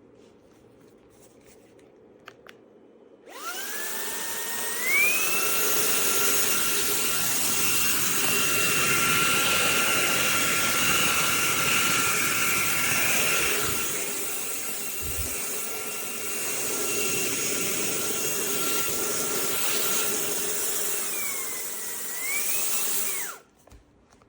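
Fanttik V8 Apex cordless handheld vacuum switched on, its motor whine rising in two steps as it spins up. It then runs steadily with a high whine. Near the end the pitch dips and climbs again, then the motor is switched off and stops abruptly.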